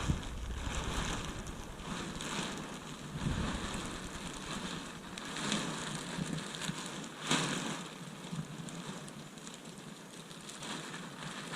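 Wind noise on the microphone, a rushing hiss that swells and fades in gusts, strongest about seven seconds in.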